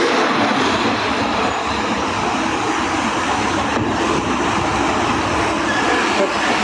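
Steady, loud rumble of a passing vehicle.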